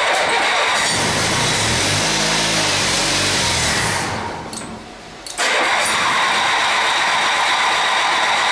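Honda 4514 lawn tractor's liquid-cooled twin-cylinder engine cold-starting on jumper cables from a weak battery. It cranks and fires with a rising pitch for about four seconds, then falls away. About five seconds in it comes back in at once and keeps running steadily.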